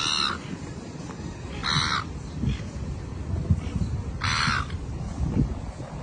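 A bird giving three short, harsh calls a couple of seconds apart, over a low rumble with a few knocks.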